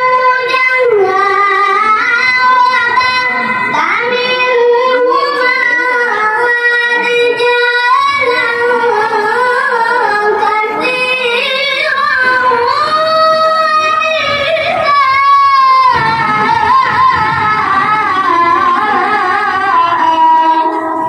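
A boy reciting the Qur'an in melodic tilawah style into a microphone: long, high held notes with rippling ornaments, ending near the end.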